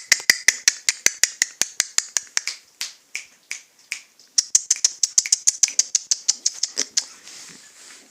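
Piglet suckling: quick, even wet smacking clicks, about seven or eight a second, in two long runs with a short break between them.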